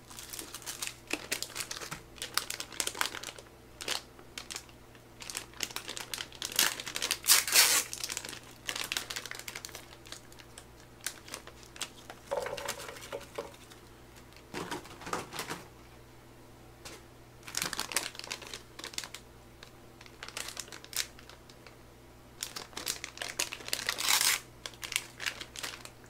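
Plastic packaging crinkling and tearing as a pack of tteokbokki rice cakes is opened by hand, with irregular sharp clicks and light knocks in between. It comes in bursts, loudest about a third of the way in and again near the end.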